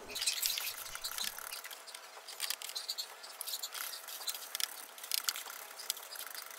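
Small detailing brush scrubbing dust off the fuel pump's cover plate and connector: faint, irregular scratchy brushing strokes.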